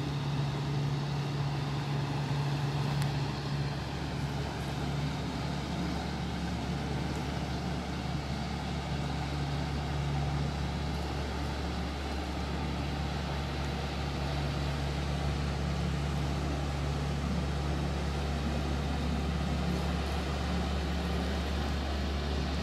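A steady low engine drone runs throughout, with a pitch band just above it that wavers, under an even wash of noise.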